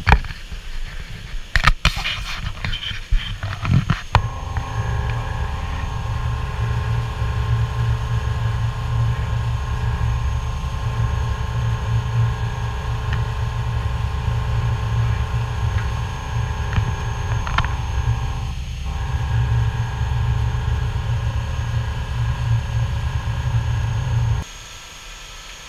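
Steady low rumble of the cruise boat's engine and the rushing water of its bow wave, with a steady hum above it. A few sharp knocks come in the first few seconds, and the rumble drops away suddenly near the end.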